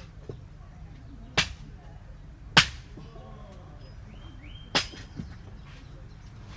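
Three sharp strikes, the second the loudest, with a couple of lighter knocks between: a hammer or mallet driving tent pegs into the ground.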